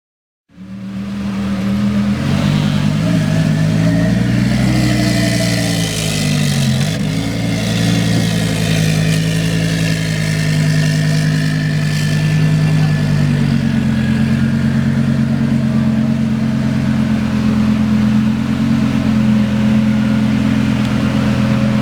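Twin-turbocharged Lamborghini Huracán V10 running at low speed. Its engine note rises and falls a few times in the first several seconds, then settles into a steady low drone.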